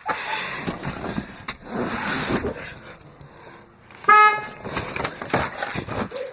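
A car horn sounds once, a short toot lasting about a third of a second, about four seconds in; it is the loudest thing here. Irregular noisy sounds come before and after it.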